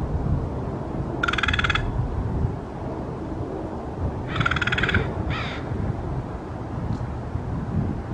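Crow calling three times: a half-second call about a second in, another about four seconds in, and a shorter one right after it. A steady low rumble runs underneath.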